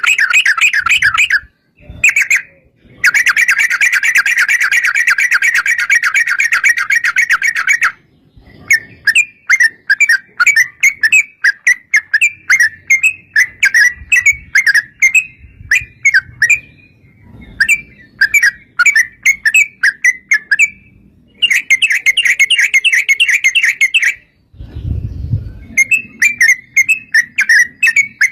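Yellow-vented bulbul (trucukan) singing a gacor, rapid-fire chattering song of quick notes, with long unbroken rattling trills early on and again near the end. There is a brief low rumble near the end.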